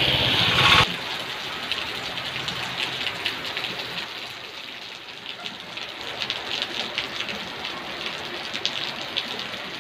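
Heavy rain falling on a flooded road: a steady hiss with many small drops pattering on the standing water. Louder music carried over from before cuts off suddenly just under a second in.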